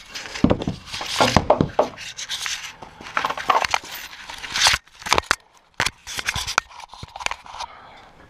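Handling noise from a helmet-mounted camera pressed against the goal's netting and frame: irregular rubbing and scraping with sharp knocks, the loudest about five to six seconds in.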